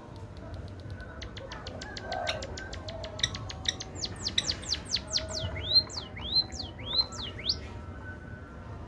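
An emprit (munia) singing a canary-style song it has been tutored with: a fast run of ticking notes that speeds up, then a string of loud, downward-sliding whistles that stops about seven and a half seconds in.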